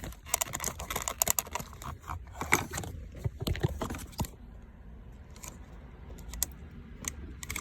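Rapid clicks and rattles of hard plastic as a wiring connector's latch is squeezed and the plug is worked off a car's shifter bezel trim piece. The sound is busy for about the first four seconds, then a few scattered clicks follow.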